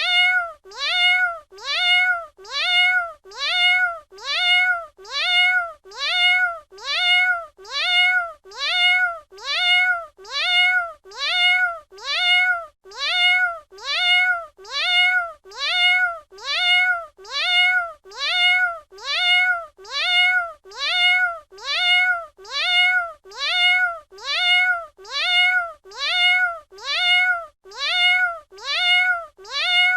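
A domestic cat's meow played on a loop, about once a second, each call identical: the pitch rises, holds briefly, then drops away.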